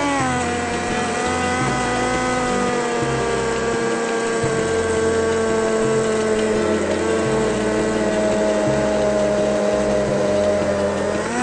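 Electric hand (immersion) blender running in a pot, puréeing tomato cream soup: a steady motor whine whose pitch shifts a little now and then as it works through the soup.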